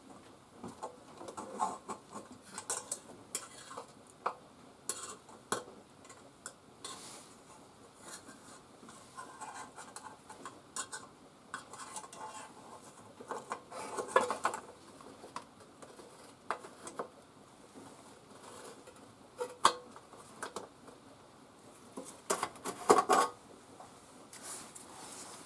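Small metal parts and hand tools clinking and clicking irregularly as scooter parts are handled and worked on at a bench, with a cluster of louder clinks near the end.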